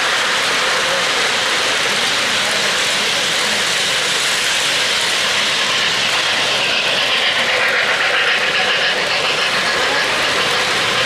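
O-gauge three-rail model trains running on metal track: a steady rolling whir of wheels on rail as the cars pass.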